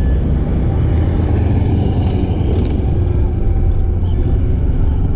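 Street traffic: a steady, loud low rumble of passing road vehicles.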